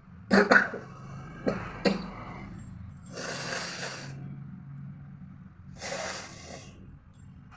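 A woman sneezing sharply a few times, then two longer, hissing blasts of air as she blows her nose hard.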